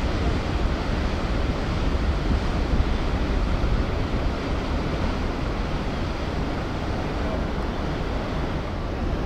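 Steady low rumble of a passing ro-ro passenger ferry, mixed with the wash of water from its wake and wind on the microphone.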